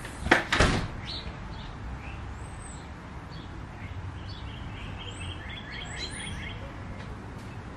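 Small birds chirping, with a quick run of about half a dozen repeated notes about five seconds in, over a steady low background noise. Two brief noisy bumps about half a second in are the loudest sounds.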